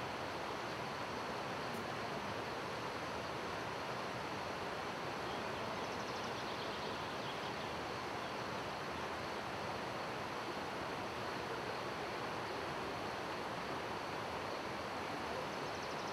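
Steady rush of a shallow torrent running over a stony bed.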